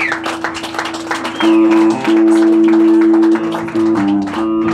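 Live band with electric guitars playing a slow instrumental passage: held notes and chords that ring out and change pitch every second or so.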